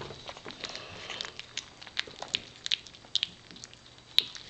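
Nearly three-week-old cocker spaniel puppies eating wet gruel from a plate: a run of small, irregular wet smacking and lapping clicks, with one sharper click a little before the end.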